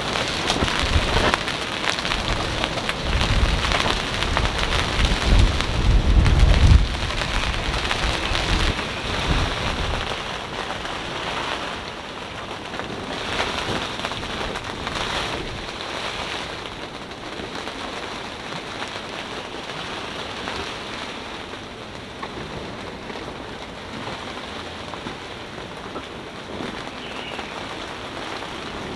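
Wind storm noise around a sailboat moored in a marina: a steady rushing hiss of wind and rain. Heavy low gusts buffet the microphone during the first ten seconds, then ease.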